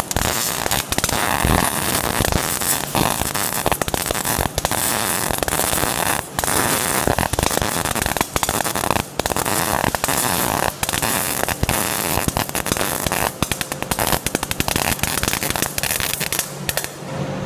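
MIG welding arc crackling and spitting, with CO2 shielding gas and the wire feeding into the weld, broken by many short pauses as the trigger is released and pulled again. The arc stops shortly before the end, leaving a low hum.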